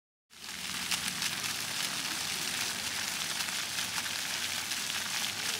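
Splash-pad fountain jets spraying water up and splattering onto wet concrete, a steady hiss that starts abruptly a moment in.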